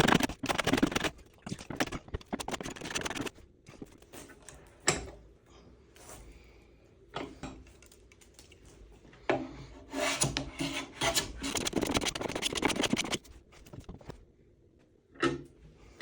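Hand plane shaving wood in quick, repeated scraping strokes. There is a busy run of strokes at the start, a quieter stretch with a few scattered strokes in the middle, and another busy run from about nine to thirteen seconds.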